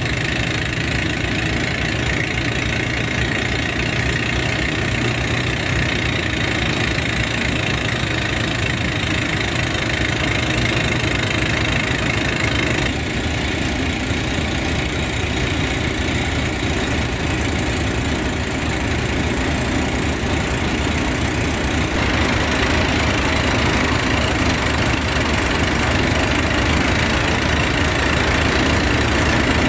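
Class 37 diesel locomotive's English Electric V12 engine idling steadily while standing, growing a little louder in the last third.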